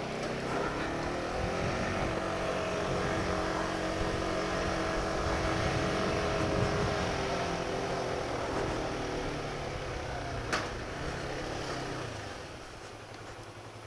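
Motorcycle engine running under way. Its note rises in the first second, holds steady, then falls and fades about nine to twelve seconds in as the bike slows. There is one short click about ten seconds in.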